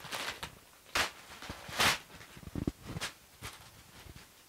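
Plastic packaging rustling and crinkling in several short crackles as wrapped clothes are handled and lifted out of a cardboard box.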